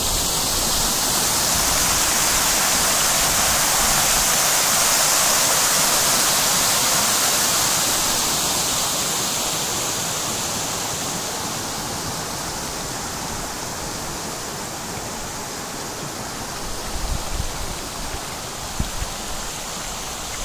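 Fountain water splashing into basins: a steady rushing hiss, louder in the first half and easing off after about ten seconds. A few low thumps near the end.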